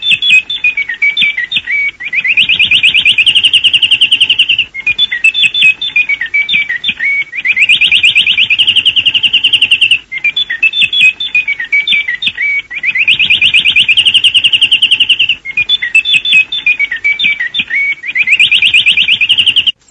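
RAI Italy's shortwave interval signal, an imitation birdsong played back from an off-air 1980s recording. A phrase of quick warbling chirps alternates with a longer held trill, and the pair repeats about every five seconds, four times over.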